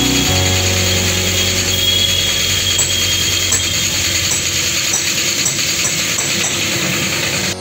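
Compressed-air paint spray gun hissing steadily as it sprays paint onto a scooter panel, over the steady low hum of an air compressor running.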